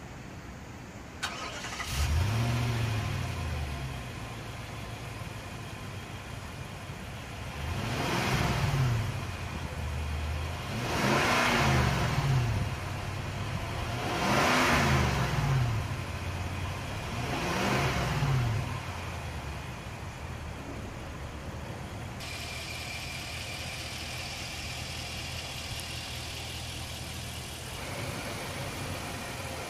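2017 Nissan Armada's 5.6-litre V8 cranking and starting about two seconds in with a brief rev flare, settling to idle, then revved four times, each rev climbing and falling back, before idling steadily.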